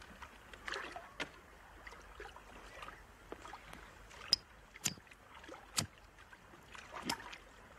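Water sloshing and lapping, with a few short sharp splashes or knocks about four to seven seconds in.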